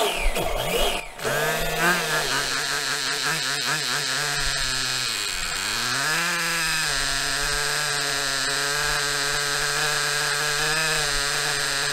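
Maxy's Cinco 2.0 two-stroke nitro RC engine idling on a break-in stand with its idle raised, running steadily during break-in. About five seconds in, its speed sags briefly and then picks back up.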